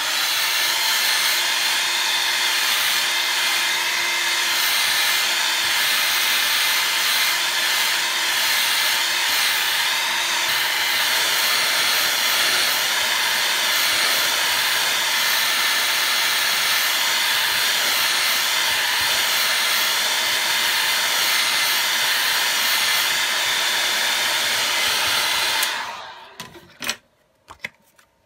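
Hot-air heat gun blowing steadily onto a phone's back glass, heating it to soften the adhesive; it cuts off abruptly near the end.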